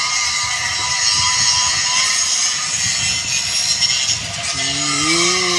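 Steady loud background noise: an even hiss with a few faint, steady whining tones, like a running machine.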